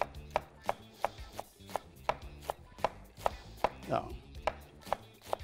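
Chef's knife finely shredding a head of cabbage on a wooden cutting board, the blade striking the board in steady strokes about three times a second.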